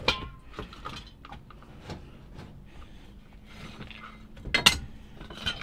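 Hands rummaging through a pile of junk: metal cans and other scrap being shifted, making scattered light knocks and clinks, with one sharper knock about four and a half seconds in.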